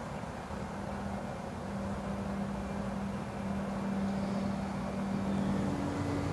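A motor's steady hum with a low drone, whose pitch shifts near the end.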